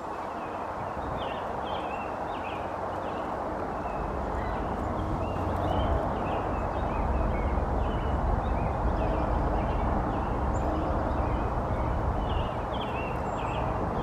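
Small songbirds chirping, many short high notes scattered throughout, over a steady low rush of outdoor noise.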